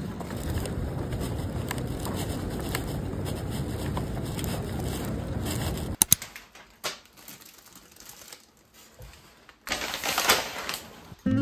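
A steady outdoor rumble and hiss, then, after a sudden drop to a quiet room, a few scattered clicks and knocks and a short burst of kraft-paper wrapping rustling near the end as the paper-wrapped bundle of branches is handled.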